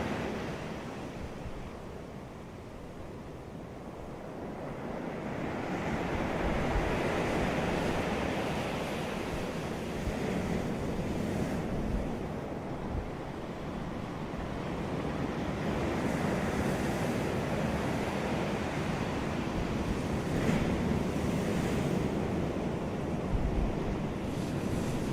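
Ocean waves breaking and washing up a beach, the surf swelling and ebbing in slow surges, with some wind buffeting the microphone.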